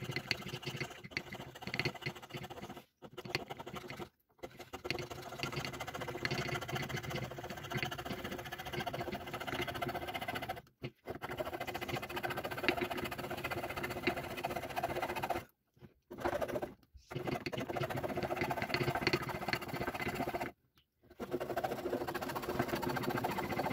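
Fine-bladed hand saw rasping through a wood-and-resin blank in rapid short strokes while cutting out a heart shape. The sawing stops dead for short moments several times, then resumes.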